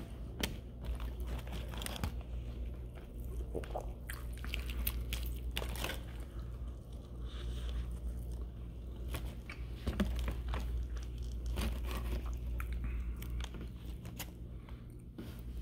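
A man chewing a mouthful of fried chicken breast, with scattered wet smacks and crunches of the breading at an irregular pace, over a steady low hum.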